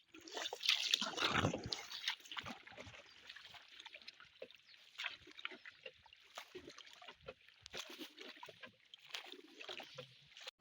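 Goats snuffling and grunting, with scattered clicks and rustling as they move about, loudest about a second in.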